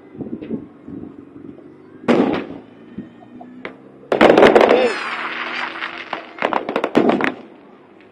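Aerial firework shells bursting: a bang about two seconds in, a bigger one about four seconds in followed by a spell of crackling, then a quick run of sharp reports near the end.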